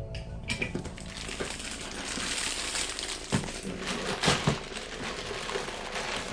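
Parcel packaging rustling and crinkling as it is opened by hand, with a few sharp clicks and knocks about halfway through.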